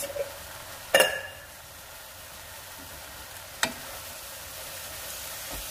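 Ground turkey chili with freshly added diced tomatoes sizzling gently in a pot as a wooden spoon stirs it. A sharp knock of the spoon against the pot rings briefly about a second in, with a lighter knock a few seconds later.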